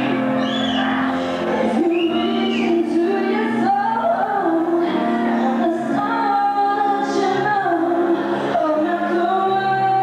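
A female vocalist sings live into a handheld microphone, holding long notes of a slow melody over a band's sustained chords.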